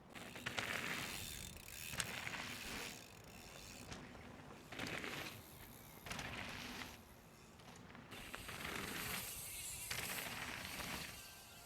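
Mountain bike freehub ratchet buzzing in several separate spurts as the bike coasts.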